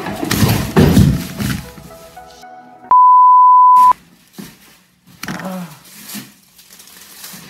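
A wet painted canvas flying off a paint-pour spinner and landing face down on a plastic-covered table with a loud clatter and thump, over background music. About three seconds in, a steady one-second censor bleep, then scuffling as the canvas is grabbed from the table.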